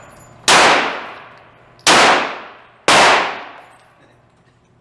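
Three handgun shots about a second apart, each echo fading away over about a second.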